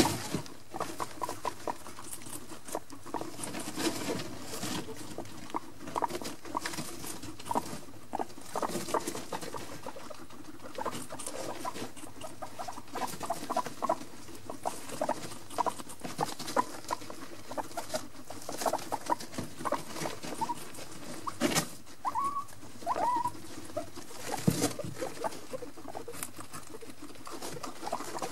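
Guinea pigs chewing cucumber and scrabbling about in wood-shavings bedding, a constant run of small crunches and rustles. A couple of brief squeaks come about two-thirds of the way in.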